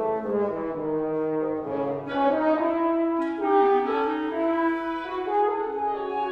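Woodwind quintet of flute, oboe, clarinet, French horn and bassoon playing a classical chamber piece. Several instruments hold overlapping notes that move to new pitches every second or so.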